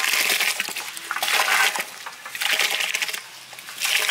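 Washed rice poured by hand from a metal bowl into a large pot of boiling water, splashing and pattering into the water in about four bursts, roughly one every second.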